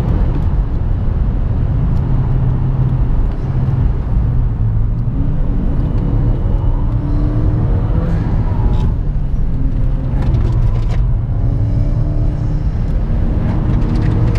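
Tuned (about 330 hp) Seat Leon Cupra 1P's turbocharged 2.0-litre four-cylinder engine and exhaust heard from inside the cabin, pulling hard uphill. Its note rises and falls as the car works through the gears, with a brief drop about three and a half seconds in.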